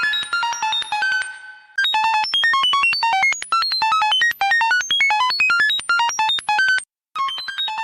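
Rapid electronic beeps, about ten a second, each a short tone at a pitch that jumps up and down at random. The beeping stops briefly about two seconds in and again near the end, then carries on.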